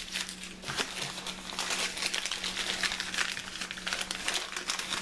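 Clear plastic bag and newspaper packing crinkling and rustling in the hands as parts are unwrapped, in a continuous irregular crackle.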